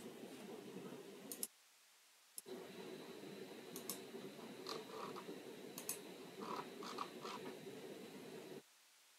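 Faint computer mouse clicks, a dozen or so scattered and some in quick pairs, over a low hiss of room and microphone noise that cuts in and out twice.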